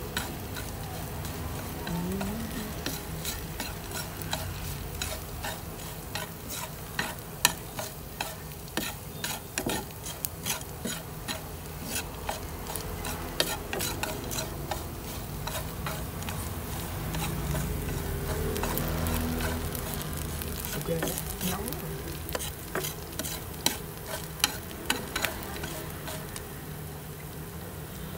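Small dried anchovies frying in a wide metal pan while chopsticks stir and scrape them against the metal. Irregular sharp clicks and scrapes sound over a steady light sizzle. The clicks come thickest in the middle stretch and again near the end.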